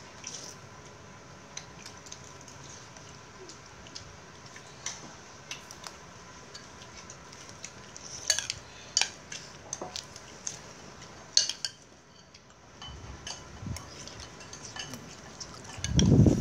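Metal spoon clinking and scraping against a ceramic bowl as it stirs rice gruel mixed with raw cabbage and bean sprouts, in scattered light taps that come thickest about eight to nine seconds in and again around eleven seconds. A dull low thump near the end.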